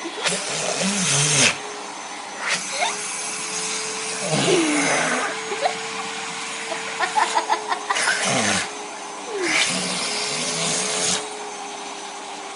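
Vacuum cleaner running with a steady hum, its rushing noise swelling louder in about five bursts of roughly a second each.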